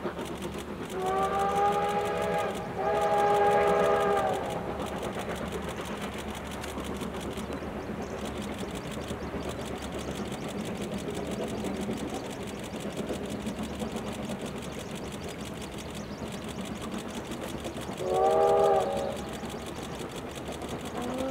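Steam locomotive's whistle blowing two long blasts, one right after the other, about a second in, then one short blast near the end, over a steady background of the train running.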